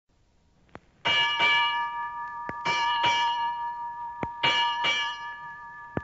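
A ship's bell struck in three pairs of quick double strokes, ding-ding, ding-ding, ding-ding, the way a ship's bell strikes six bells. Each stroke rings on and fades slowly, and a faint click comes before each pair.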